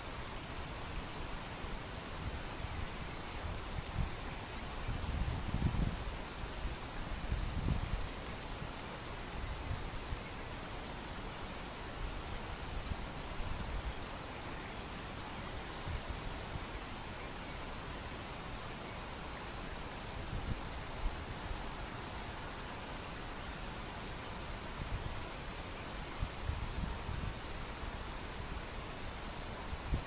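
Shallow river running over a stony bed in a steady rush, with a high, rapidly pulsing insect trill on top and a few low rumbles of wind on the microphone, once early and once near the end.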